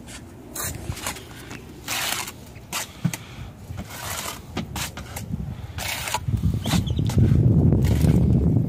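Steel trowel scraping and spreading mortar on concrete block in short rasping strokes, roughly one a second. In the last two seconds a low rumble swells up and becomes the loudest sound.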